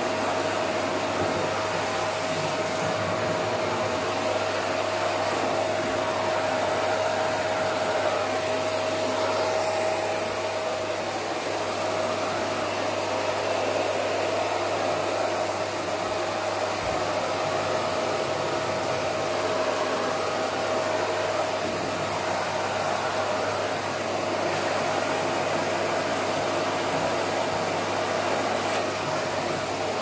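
Vacuum cleaner running steadily, its hose sucking at a down jacket and the loose down feathers around it, with a steady whine that grows fainter about a third of the way through.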